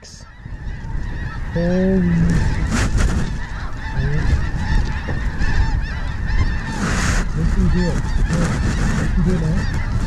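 A large flock of snow geese calling as it circles low over the decoys: a dense, continuous chorus of many overlapping honks, building up after the first half-second.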